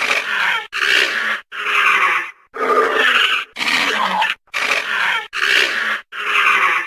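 Dinosaur sound effect: a run of eight short, rough growling calls in quick succession, each under a second long, with brief silent gaps between them.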